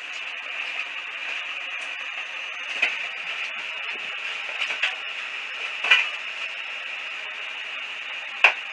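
A steady hiss with four short clicks or taps spread through it, the last one the loudest, near the end.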